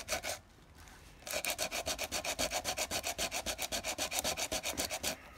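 80-grit sandpaper rubbed quickly back and forth by hand over a cured epoxy plug on a hard plastic Jolly Ball, sanding it flush with the ball's wall. The strokes are rapid and even. They pause briefly about half a second in, then run steadily until they stop near the end.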